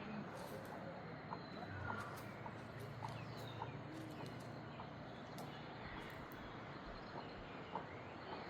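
Birds calling: scattered short chirps and clucking calls over a steady outdoor hiss.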